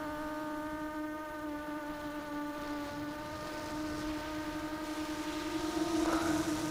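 Makerfire Falcon FPV300 racing quadcopter in flight, its motors and propellers giving a steady whine. A rushing hiss builds and the sound grows a little louder near the end.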